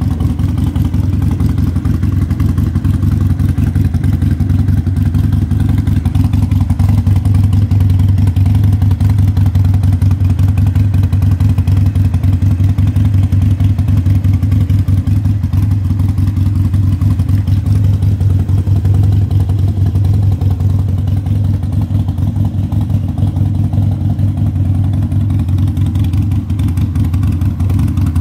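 Harley-Davidson Sportster Iron 883's air-cooled 883 cc V-twin idling steadily, with no revving.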